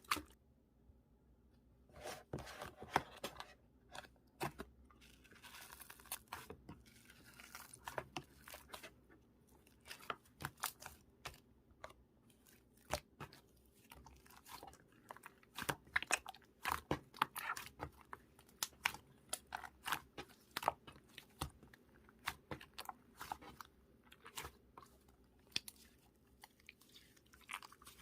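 Slime being squished, pressed and stretched by hand, giving irregular sticky clicks and crackles that come in clusters, thickest in the middle stretch.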